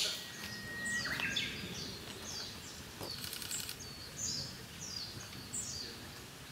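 Asian brown flycatcher fledglings calling: a run of short, high, falling chirps, roughly two a second, with a brief buzzy rattle about three seconds in.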